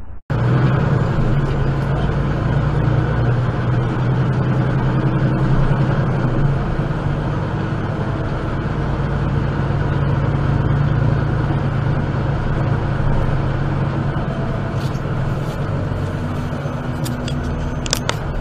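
A vehicle's engine droning steadily at low road speed, heard from inside the cab, with a few sharp clicks near the end.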